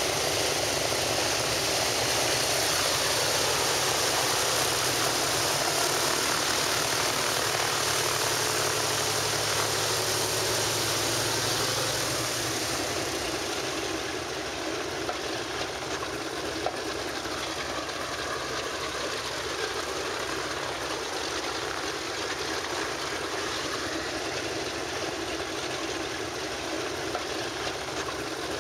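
Boeing B-17 Flying Fortress's four Wright R-1820 Cyclone radial engines running at takeoff power as the bomber rolls down the runway, a steady drone that drops somewhat after about twelve seconds.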